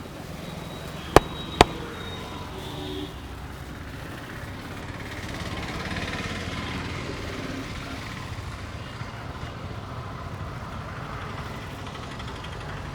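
Steady street traffic noise, with two sharp snaps about half a second apart a second or so in.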